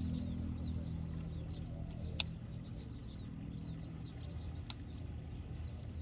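Small birds chirping, many short high calls, over a low steady hum that eases off after the first two seconds. Two sharp clicks, about two and about five seconds in.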